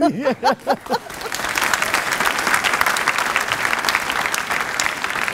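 A man laughing for about a second, then a studio audience applauding, dense and steady.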